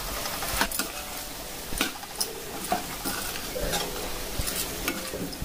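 Steel spoon stirring brinjal curry freshly dusted with curry powder in a kadai, the spoon scraping and clicking against the pan now and then while the vegetables sizzle.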